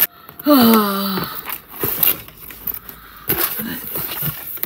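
A woman's drawn-out "oh", falling in pitch, about a second in, followed by soft rustling and light knocks of paper and small items being handled.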